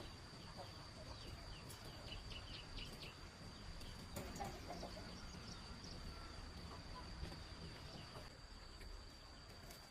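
Faint farmyard sounds: chickens clucking and small birds chirping, over a steady high-pitched tone.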